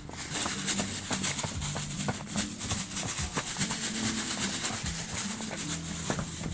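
Hoofbeats of a pinto filly trotting on a dirt floor: a run of soft, irregular thuds. Underneath is a low steady hum that shifts pitch now and then.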